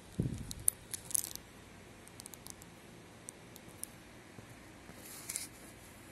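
Close handling noise: a soft low thump just after the start, then scattered small clicks and ticks, with a brief light rustle about five seconds in.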